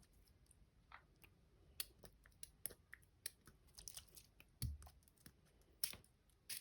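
Faint, scattered sticky clicks and small pops of a clear bingsu slime being kneaded and pulled by hand, with one soft low thump about two-thirds of the way through.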